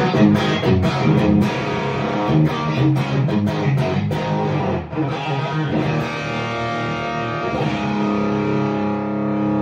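Electric guitar with single-coil pickups played through an overdrive pedal: a run of picked notes and chords, then a chord struck near the end and left to ring.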